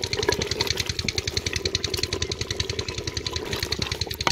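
An engine running steadily with a rapid, even chugging beat.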